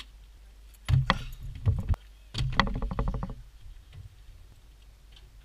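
Luggage being loaded into a car boot: several heavy thumps and knocks about a second in, then a quick even run of clicks and knocks lasting about a second.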